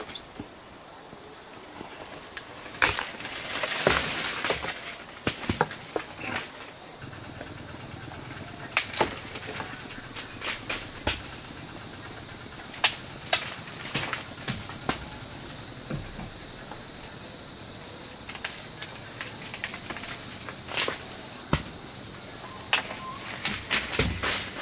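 Steady high-pitched drone of insects, overlaid by irregular sharp clicks and knocks of handling, with a brief burst of rustling about four seconds in.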